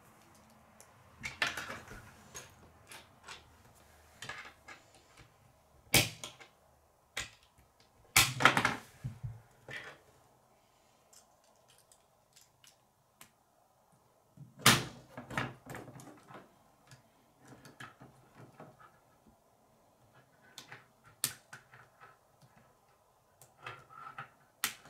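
K'nex plastic rods and connectors being snapped together and handled against a wooden tabletop: scattered light clicks with a handful of louder knocks.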